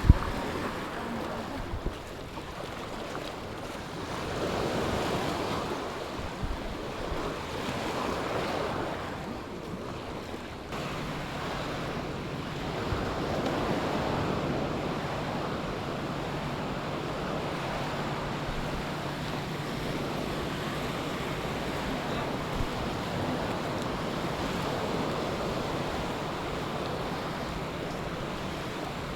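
Sea waves washing onto a beach, the surf swelling and fading every few seconds, with some wind on the microphone. A low steady hum joins about a third of the way in.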